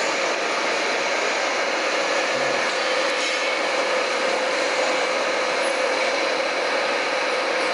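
A machine running steadily: an even rushing noise with a constant whine held at one pitch.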